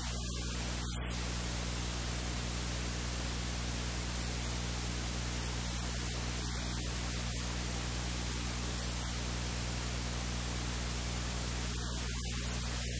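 Steady static hiss over a low electrical hum, with no other distinct sound.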